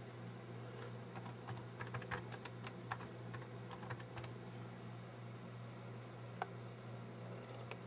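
Typing on the official Raspberry Pi 78-key US keyboard: a quick run of key clicks over about three seconds, then a lone click later on. A low steady hum sits underneath.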